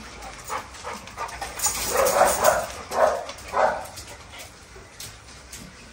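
Dogs barking: a cluster of short barks about two seconds in, then two more half a second apart.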